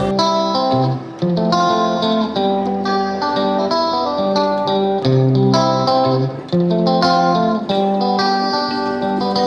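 Background music led by a plucked guitar, playing a melody of short notes.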